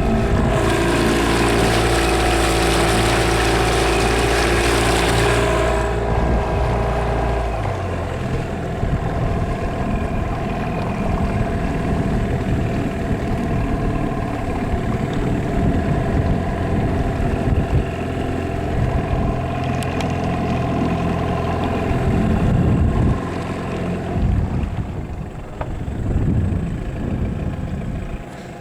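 Boat's outboard motor running steadily at low speed, tilted up for shallow, weedy water. A hiss rides over it for the first six seconds, and the deep rumble drops off about seven or eight seconds in.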